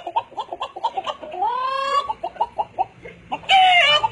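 A man vocally imitating a hen clucking: a quick run of short clucks, a longer drawn-out rising call about a second and a half in, and a louder, higher squawk near the end.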